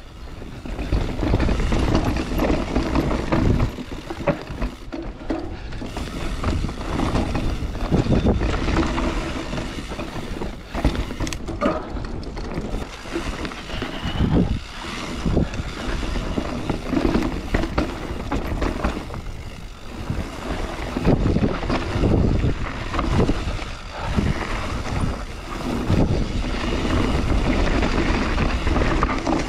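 Mountain bike ridden over a rough trail: wind rushing over the microphone, with irregular rattles and knocks from the bike over bumps.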